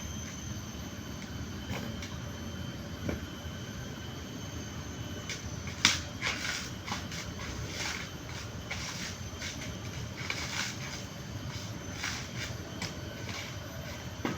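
Coconut husk being worked off by hand: a run of scraping, tearing and knocking of the fibrous husk, with one sharp crack about six seconds in.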